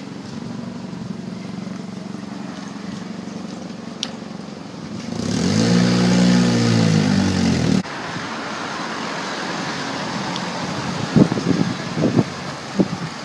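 Street traffic noise. Near the middle a motor vehicle's engine rises and then falls in pitch for about two and a half seconds and cuts off abruptly. A few sharp knocks come near the end.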